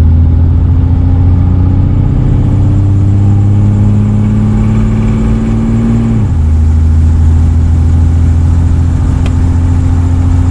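1988 Jeep Wrangler YJ's 4.2-litre straight-six engine pulling under acceleration while driving. The engine pitch climbs steadily, drops abruptly about six seconds in as it shifts up a gear, then climbs again.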